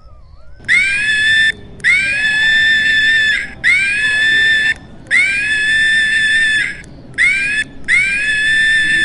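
A monkey screaming: six long, high-pitched screams in a row, each sliding up at the start and then held level, with short breaks between.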